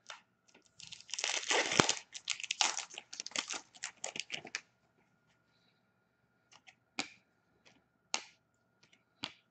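A hockey card pack's wrapper torn open and crinkled for a few seconds, then a few light, separate clicks.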